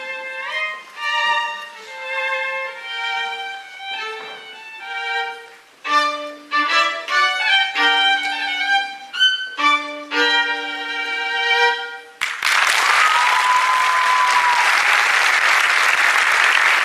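Violin playing a slow, lilting melody that ends about twelve seconds in, followed at once by loud, steady applause from an audience.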